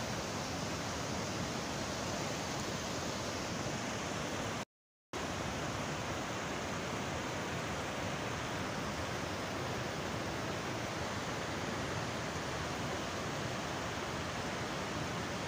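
Steady rush of the Kunhar River in spate, muddy floodwater pouring fast over boulders. The sound cuts out completely for about half a second about five seconds in.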